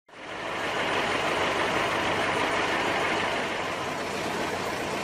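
Steady street traffic noise with vehicle engines running, fading in quickly at the start.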